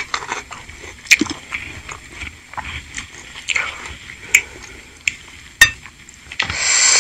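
Mukbang eating sounds: a lime squeezed over a bowl of broth, a few sharp clicks and knocks as a wooden spoon stirs the ceramic bowl, and a slurp of spicy broth near the end.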